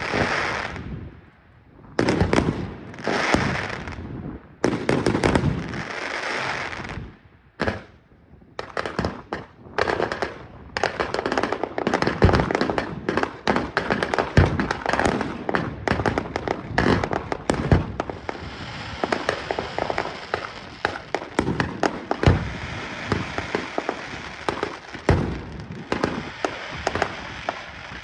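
Fireworks display: three shell bursts in the first seven seconds, each followed by a long crackle. Then comes a dense run of rapid bangs and pops, which settles into continuous crackling with scattered pops.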